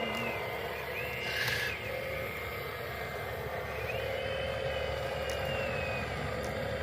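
Small electric motors of radio-controlled construction models running, with a steady hum and a high whine that steps up in pitch and drops back about a second in and again from about four to six seconds in, as the machines are driven.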